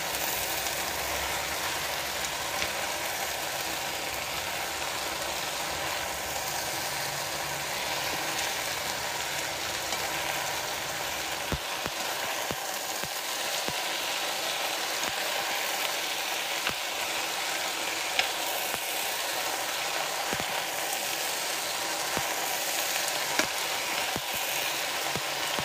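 Rice vermicelli and vegetables sizzling steadily in an oiled frying pan as they are stir-fried, with sharp clicks of wooden chopsticks against the pan, scattered through the second half, as the noodles are tossed.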